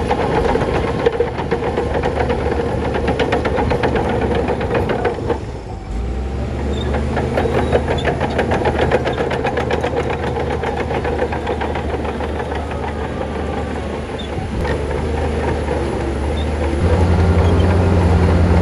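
Shantui crawler bulldozer working: its diesel engine runs steadily under a fast, continuous clatter of the steel tracks. The engine dips briefly about six seconds in, then settles on a deeper note, and near the end it comes up louder.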